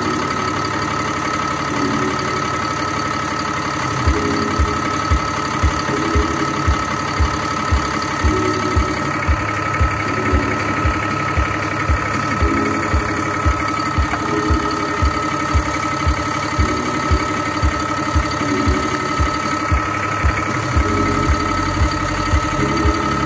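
DAF LF45 truck diesel engine idling steadily with a constant high whine. From about four seconds in, a regular low thump comes in about twice a second.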